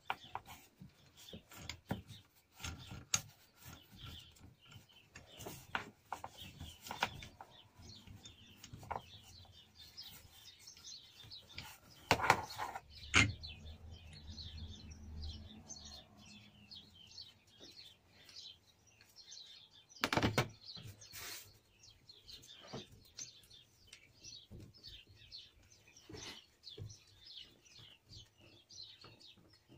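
Occasional knocks and clinks of a small metal lathe's parts being handled and taken apart, the loudest about twelve and twenty seconds in. Faint bird chirping, rapid short chirps, runs through the second half.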